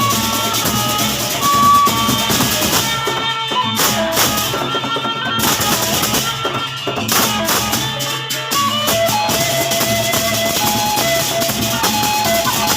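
Gendang belek ensemble playing: big double-headed drums beaten in a dense rhythm with clashing cymbals, under a melody of held notes that steps between pitches. The cymbals drop out briefly twice near the middle.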